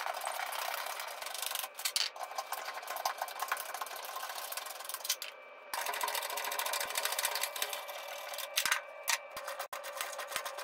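Rapid metallic ticking of a socket ratchet as a T55 Torx truck-bed bolt is spun out on an extension, with a few louder clicks near the end.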